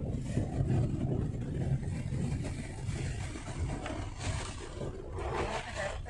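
Engine and road noise of an off-road vehicle heard from inside its cabin as it drives over a rough, muddy forest track: a steady low rumble, with a noisier stretch in the last couple of seconds.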